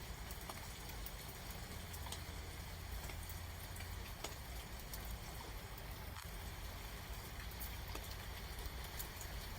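Steady rain falling, with scattered faint drop ticks over a low, even rumble.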